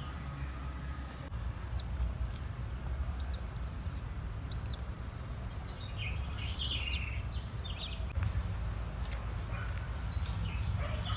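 Small birds chirping, short high calls clustering in the middle of the stretch and a few more near the end, over a steady low rumble.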